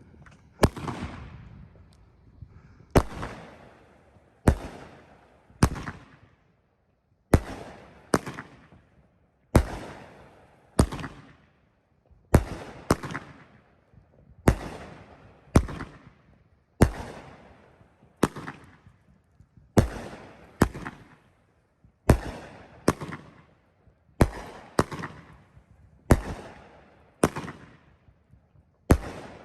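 Phantom Fireworks' Crown Jellyfish, a 20-shot consumer fireworks cake, firing its shots one after another. Sharp bangs come about one every second or so, some in close pairs, each dying away over about a second.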